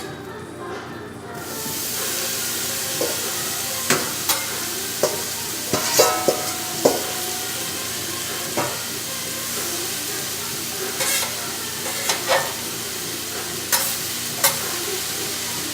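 Sliced onions and bell peppers sizzling on a hot grill. The steady sizzle starts about a second in, with sharp clicks and scrapes from a utensil stirring the vegetables now and then.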